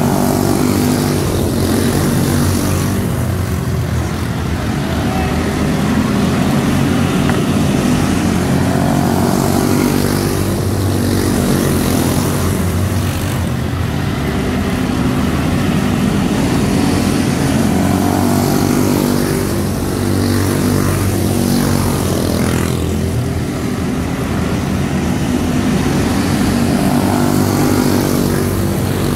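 A pack of quarter midget race cars lapping a dirt oval, their single-cylinder Briggs & Stratton Animal engines running together at full throttle. The sound swells and fades every few seconds as the cars come past and move away.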